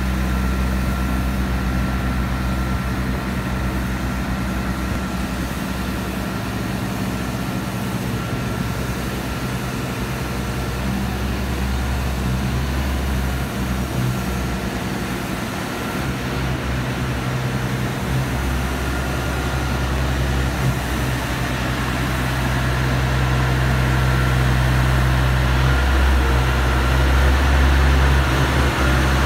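Self-propelled modular transporter's diesel power pack running steadily under load as it carries the barge, a constant low engine drone with a thin steady whine above it. It grows louder over the last few seconds.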